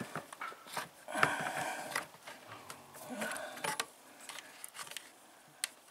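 A spark plug being unscrewed from the cylinder of a Holzfforma G660 chainsaw with a plug wrench: irregular metal clicks and scrapes, with short squeaks about a second in and again around three seconds.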